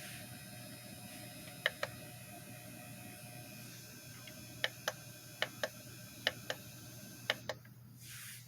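Sunbeam SFH 442 fan-forced space heater running with a steady hum while its control knob is turned, giving five pairs of sharp clicks. Near the end the hum drops away as the heater is switched off.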